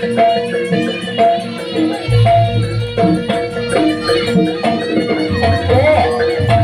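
Live Javanese jaranan campursari band music: sustained melody notes over regular percussion strikes. The deep bass drops out for about the first two seconds and again briefly near the end.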